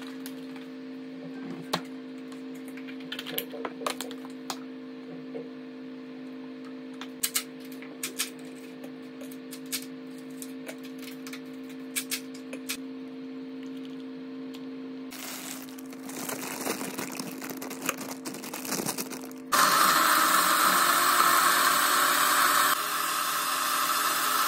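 Clinks and knocks of kitchen containers being handled over a faint steady drone, then a NutriBullet personal blender switched on about 19 seconds in, running loud and steady through the last five seconds as it blends a fruit smoothie.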